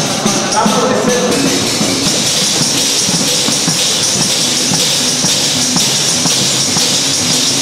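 Several large frame drums with metal jingles (southern Italian tamburelli) played together in a fast, steady rhythm. The jingles rattle continuously over the drumbeats.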